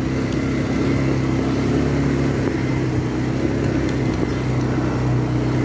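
A four-wheeler (ATV) engine running at a steady pitch while being ridden, heard from the rider's seat.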